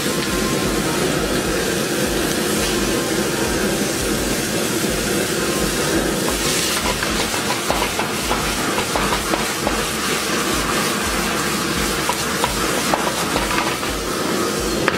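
Beef tenderloin slices searing in a very hot wok over a gas flame: a loud, steady sizzle with a low rumble under it. From about seven seconds in, light clicks join it as the meat is stir-fried and the wok flares up.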